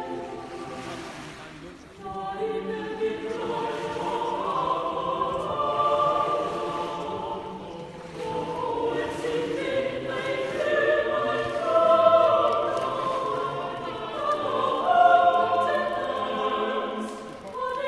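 A choir of many voices singing a slow melody together.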